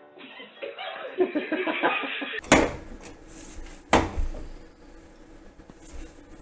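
A young child's voice babbling, then two sharp knocks about a second and a half apart as a bottle is handled against the shelves of an open refrigerator, followed by a faint steady hum.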